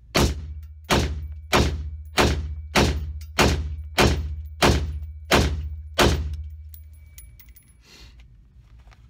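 Ten rifle shots fired in steady rapid succession, about one and a half a second, each trailing off briefly, over roughly six seconds: a timed ten-round string.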